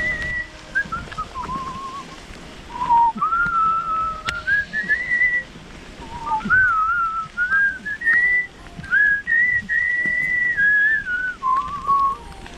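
A person whistling a tune: one clear note that slides and steps up and down in short phrases, with brief pauses between them.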